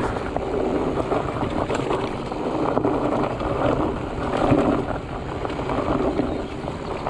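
Mountain bike riding fast down a dirt trail: tyres rumbling over the ground with many small rattles and knocks from the bike, and wind buffeting the microphone.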